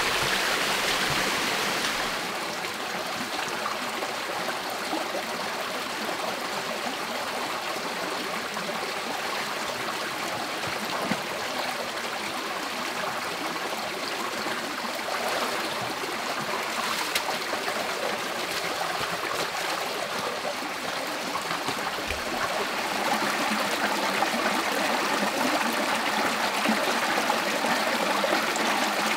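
A shallow rocky stream runs steadily over stones. It is louder in the first couple of seconds, then louder again for the last several seconds.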